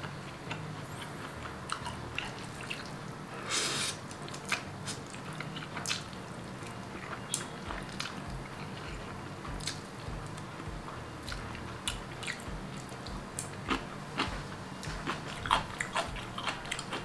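Close-miked mouth sounds of a person eating spicy instant noodles and fried tofu: wet chewing and lip smacks with short slurps of noodles.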